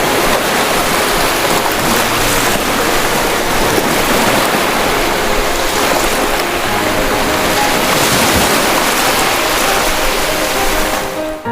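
Ocean waves surging and breaking in a loud, steady rush of water, dipping briefly near the end.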